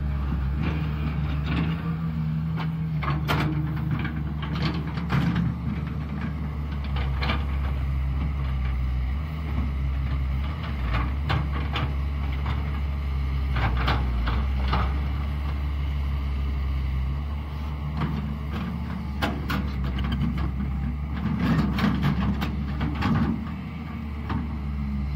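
Caterpillar 320 hydraulic excavator's diesel engine running steadily as it swings and digs, with scattered clanks and knocks from the bucket and boom working the mud. A louder, rougher stretch comes near the end.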